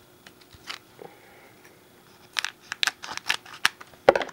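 Scissors snipping through a shiny trading-card booster pack wrapper: quiet at first, then a quick run of sharp snips from a little past halfway, the loudest near the end.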